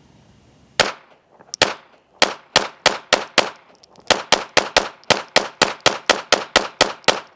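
Springfield Armory XD(M) 5.25 9mm pistol fired in rapid fire, about twenty shots. Two shots come almost a second apart, then quick strings of three to four shots a second with a brief pause near the middle.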